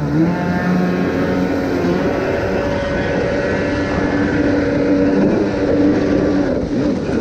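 Kawasaki X2's 650cc two-stroke jet ski engine running under way, its exhaust going through a newly fitted waterbox that is louder than the stock one. The engine note shifts slightly about a second in, holds fairly steady, and dips near the end.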